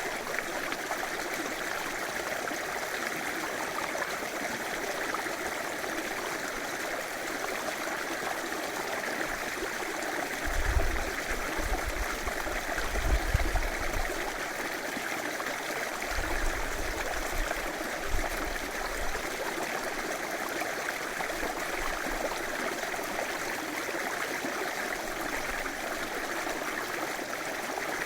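River water flowing steadily, an even rushing noise with some gurgling. Brief low rumbles come and go about ten to nineteen seconds in.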